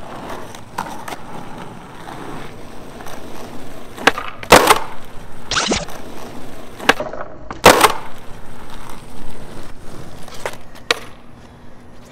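Skateboard wheels rolling on asphalt, broken by several sharp clacks of the board popping and slapping down on the ground during flatground nollie varial kickflip attempts. The loudest clacks come about four and a half and seven and a half seconds in, with fainter ones near the end.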